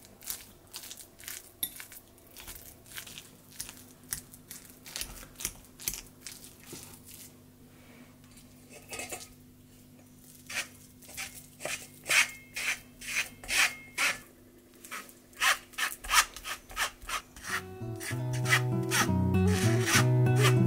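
Metal spoon scraping and pressing cooked pumpkin through a fine wire-mesh sieve, in rasping strokes about two a second. Background music comes in near the end and grows louder than the scraping.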